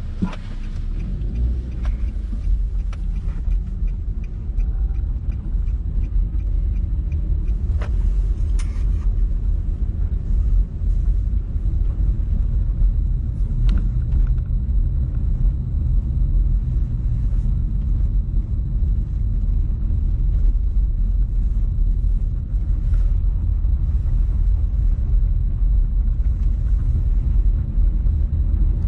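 Steady low rumble of a moving vehicle, with scattered light knocks and clicks.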